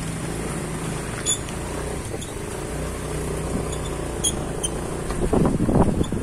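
An engine running steadily with a low hum, with a couple of sharp clicks and a louder rough burst of noise near the end.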